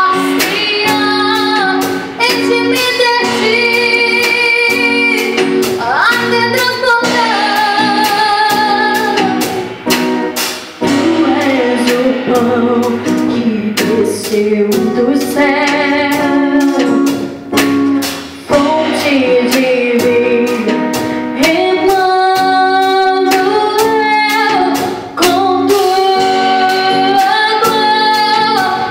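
A woman singing a Portuguese-language worship song, holding long notes that slide between pitches, over instrumental accompaniment.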